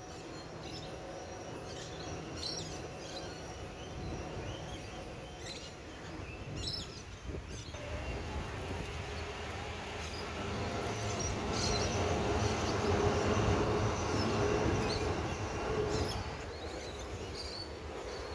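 Electric train running on the rail bridge, a steady rumble with a motor hum that swells about halfway through and drops away near the end. Birds chirp briefly now and then.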